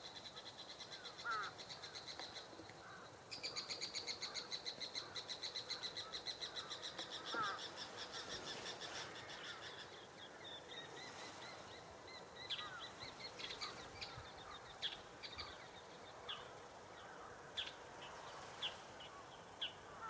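Carrion crows calling at a distance, under a fast, high, pulsing trill that grows louder about three seconds in and stops about halfway through. After it stops, short high chirps repeat.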